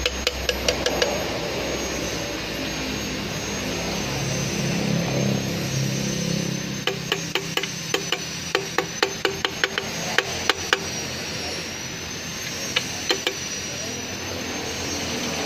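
Sharp taps of hand tools on the stripped Mitsubishi L300 petrol engine's crankshaft bearing caps: a quick run of about five right at the start, a longer run of a dozen or so from about seven to eleven seconds in, and two more near the end, over a steady mechanical drone.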